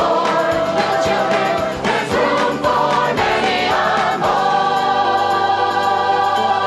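A group of voices singing together in chorus, holding one long note from about four seconds in.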